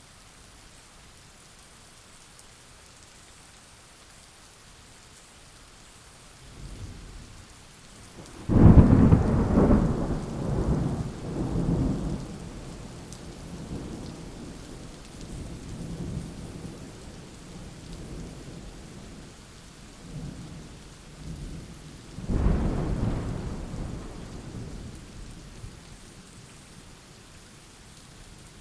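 Steady rain with thunder. A low rumble starts about six seconds in and breaks into a loud thunderclap a couple of seconds later that rolls on for several seconds. A second, somewhat weaker clap rolls away later on.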